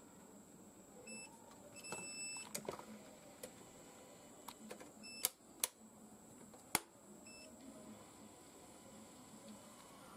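Fibre optic fusion splicer giving several short electronic beeps as its splice-loss estimate finishes, with sharp clicks as its cover and fibre clamps are opened, the loudest clicks a little past the middle.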